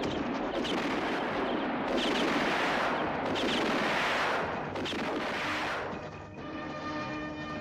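Film sound effects of a gunfight: a dense, echoing stretch of pistol gunfire in several waves. It dies away about six seconds in, and music with held tones takes over.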